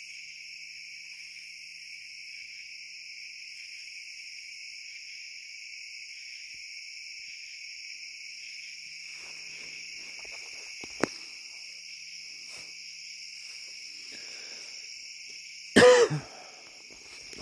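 Steady night chorus of crickets and other insects, shrilling in several even high-pitched bands. Faint rustling and a single sharp click come partway through, then a person coughs loudly once near the end.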